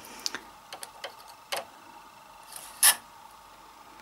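Scattered light clicks and taps of a plastic needle pusher tool and steel needles on a knitting machine's metal needle bed, with one louder sharp click about three seconds in.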